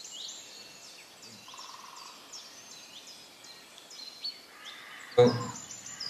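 Small birds chirping in the background: many short, high chirps and quick falling notes in rapid succession. A voice starts speaking near the end.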